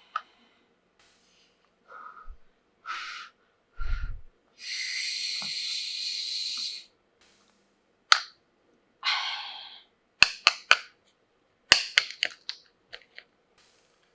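Handling of a plastic toy tea set and its packaging: short rustles, a steady rustling sound about two seconds long near the middle, and a run of sharp plastic clicks and taps in the second half.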